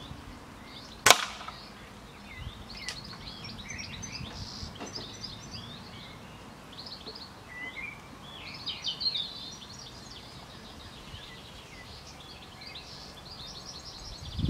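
One sharp air rifle shot about a second in, followed by birds singing, with many short chirps.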